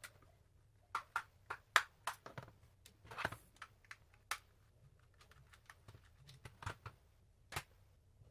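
Irregular light clicks and taps of a small screwdriver working the tiny case screws out of the plastic shell of Eachine EV100 FPV goggles, with the screws being set down on a cutting mat.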